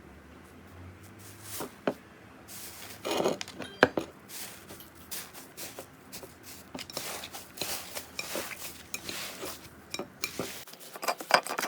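Slime being handled, making irregular crackling clicks and pops that grow busier a few seconds in.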